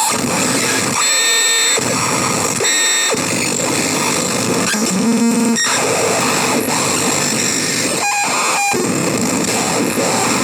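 CMOS-based harsh noise synth playing a loud, dense wall of distorted noise, with brief high whistling tones breaking through and the texture shifting abruptly every second or so.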